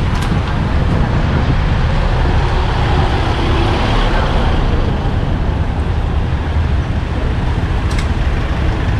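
Road traffic going by: a steady rumble of vehicles, with one passing loudest around the middle and two short clicks, one near the start and one near the end.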